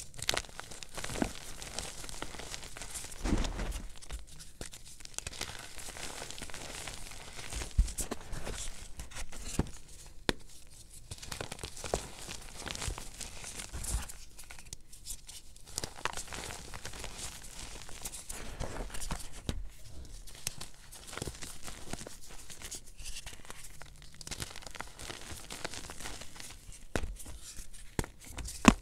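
Hands crushing and squeezing crumbly blocks of gym chalk and cornstarch: dense, irregular crunching and crumbling, with occasional sharper cracks and a few brief lulls.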